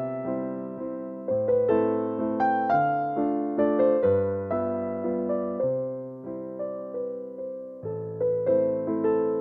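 Background music: a gentle piano melody over sustained bass notes.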